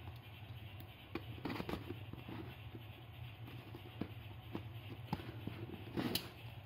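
Snap-off utility knife slitting the packing tape along a cardboard box, with scrapes and light knocks as the box is handled; the loudest scrapes come about a second and a half in and again near the end, over a low steady hum.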